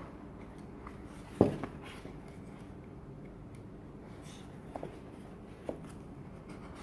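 Handling noise from a small flashlight being moved about: one sharp click or knock about a second and a half in, then a few lighter clicks, over faint room noise.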